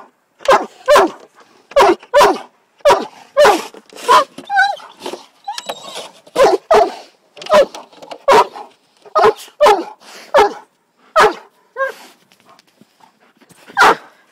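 Doberman barking over and over in excited play, short sharp barks one or two a second, with a brief lull near the end.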